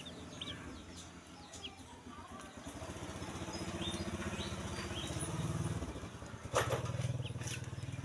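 Newly hatched ducklings peeping with short high cheeps, over a low pulsing drone that swells about a third of the way in and stays the loudest sound. A brief louder noise comes about two-thirds of the way through.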